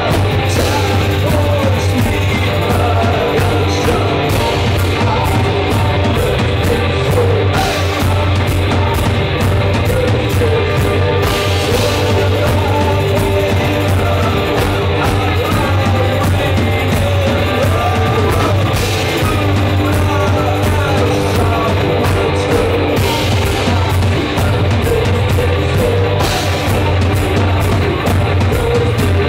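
Live band playing loud, with banjo, electric guitar and drums, and a man singing into a microphone.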